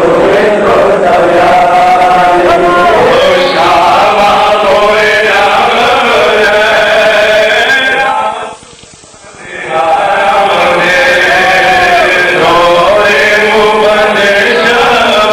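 Group of men chanting a Pashto noha, a Shia mourning lament, in unison without instruments; the chant breaks off briefly about two-thirds of the way through, then resumes.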